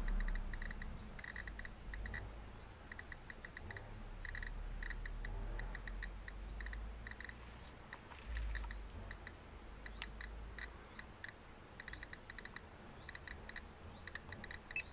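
GQ GMC-320 Plus Geiger counter clicking at random intervals, a few clicks a second, each click a detected beta or gamma count from a uranium-bearing rock held beneath it. The rate is around 100 counts per minute, well above background.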